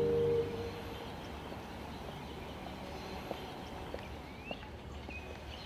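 Quiet outdoor ambience with a low steady background rumble, a few faint taps, and a bird chirping a couple of times near the end. A held musical chord fades out in the first half second.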